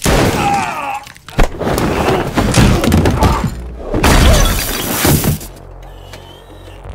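Film fight-scene soundtrack: a violent struggle with heavy crashes and impacts over music. It is loud for about five seconds, then drops away.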